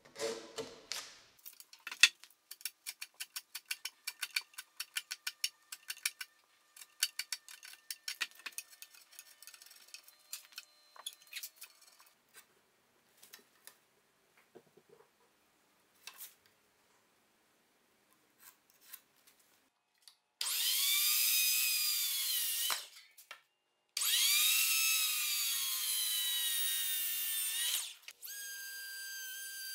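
Hand tools working softwood timber, a slick paring and then a quick run of sharp wooden knocks and clicks, followed by a circular saw cutting through a timber twice, its motor whine sagging under load and recovering. Near the end the saw runs on with a steady whine.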